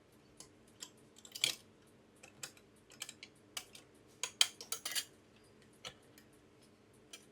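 Light metallic clicks and taps from the CPU socket's load plate and retention lever being closed and latched. A cluster of sharper clicks comes about four to five seconds in.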